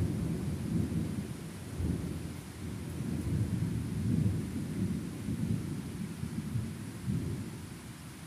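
Rolling thunder, a long low rumble that swells and ebbs several times and dies away near the end.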